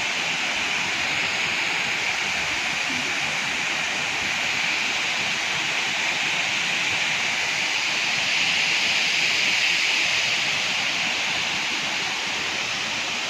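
Waterfall: a steady, bright rush of falling water, even throughout.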